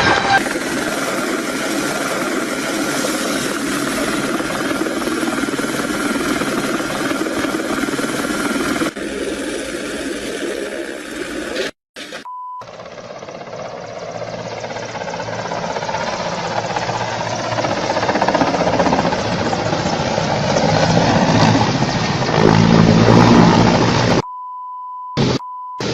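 Helicopter engine and rotor noise running steadily across several cut-together clips. A steady high beep tone sounds briefly in the middle and again for over a second near the end.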